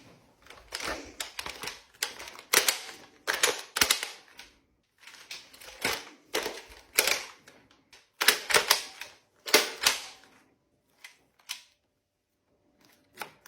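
Plastic clicks and clacks of a Nerf revolver-style blaster being handled and reloaded, in quick rattling clusters for about ten seconds, then a few single clicks near the end.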